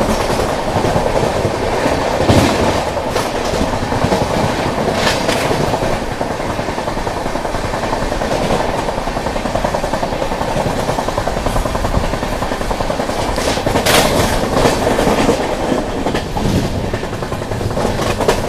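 Indian Railways passenger train running along the track: a steady rumble of wheels on rail with irregular clickety-clack as the wheels cross rail joints. There is a cluster of sharper clacks about three-quarters of the way through.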